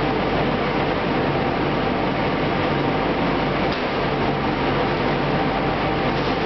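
Powder-coating spray booth running: a steady rush of air with a low, even machine hum, from the booth's extraction blower and the powder spray gun.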